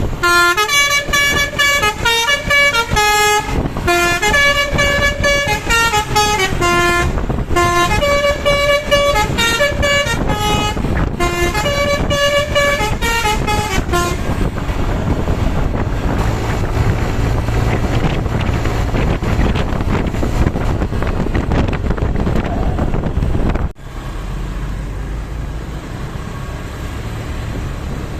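Bus telolet: a Basuri multi-tone musical air horn playing a quick tune of stepped notes in several phrases for about fourteen seconds. It is followed by steady bus engine and road noise, which changes abruptly near the end.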